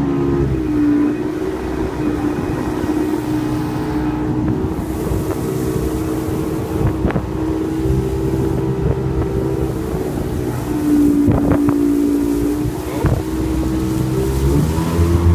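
Motorboat engine running at a steady high speed while the boat is under way, with wind buffeting the microphone and a few brief knocks. The engine note eases off near the end.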